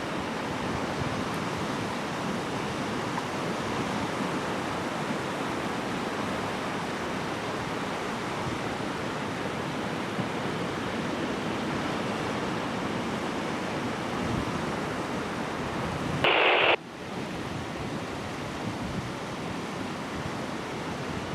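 Steady rushing noise of wind on the microphone, with a short loud burst of hiss about three-quarters of the way through, typical of a marine VHF radio's squelch.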